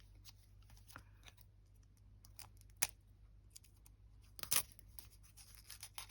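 Scissors cutting open a small craft package: faint scattered snips and clicks, a sharper click about three seconds in, and a brief louder rustle of the packaging later on.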